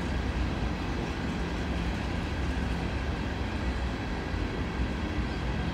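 Freight train of covered hopper cars rolling past, a steady rumble of wheels on rail.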